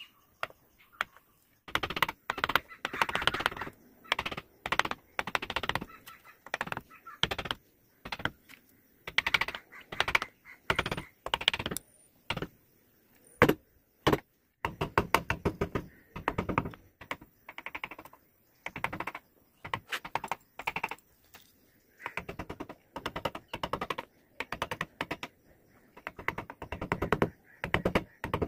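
Hand-pushed carving chisel cutting into a wooden board: short runs of fine clicks as the blade slices through the grain, stroke after stroke with brief pauses between, and one sharper single click about halfway through.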